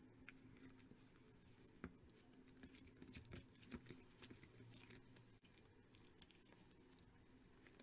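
A mail package of photocards being handled and opened by hand: faint rustles with scattered light clicks and taps, busiest in the middle.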